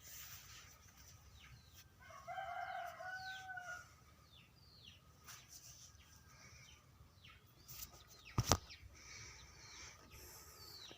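Chicks peeping: repeated short, high, falling chirps. About two seconds in comes a longer, lower two-part call lasting around a second and a half. A sharp knock sounds near the end.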